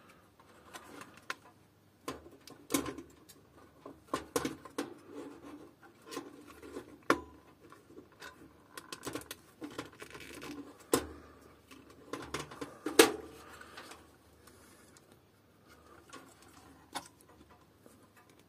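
Handling noise as plastic zip ties are threaded through a computer motherboard's cooler mounting holes: irregular clicks, taps and rustles of plastic against the circuit board. The sharpest knocks come about 3, 7, 11 and 13 seconds in.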